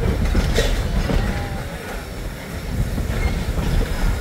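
Train rolling on the rails: a steady low rumble with a few sharp clacks of the wheels.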